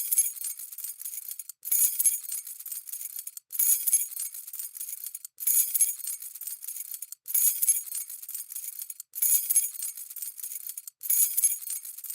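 A bunch of metal keys jangling, shaken in bursts that repeat about every two seconds with a brief silence between. Each burst is a bright, high-pitched jingle that starts sharply and then trails off.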